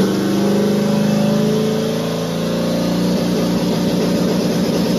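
Turbocharged car engine running at a high idle just after firing up, easing slightly and then holding steady.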